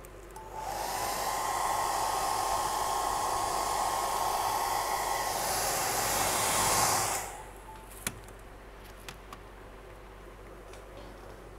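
A handheld hair dryer blows air over wet epoxy resin. It switches on about half a second in and runs steadily with a whine, its hiss getting brighter near the end, then cuts off about seven seconds in. A single sharp click follows about a second later.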